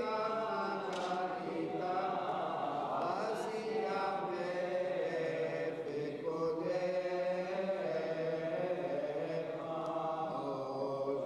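Liturgical chanting of a Jewish synagogue service: voices singing a prayer in a slow melody with long held notes.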